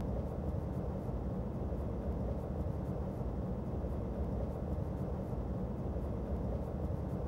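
Steady low rumble of a heavy truck engine running.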